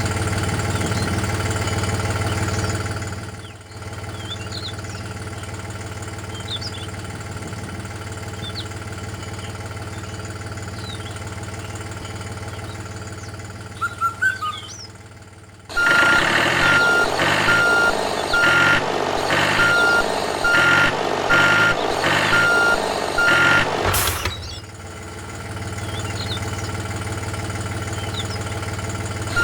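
A motor running with a steady hum. About halfway through, a louder engine comes in with a reversing alarm beeping at an even pace, a little over once a second, for about eight seconds; then it cuts off and the steady hum returns.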